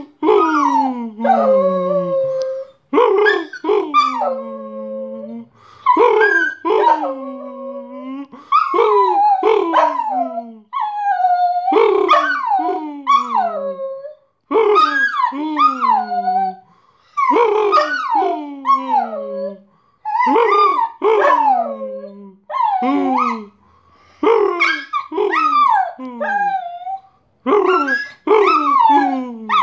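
Dog howling over and over: a long string of yowling calls that mostly slide down in pitch, coming in bursts of a few seconds with short pauses between.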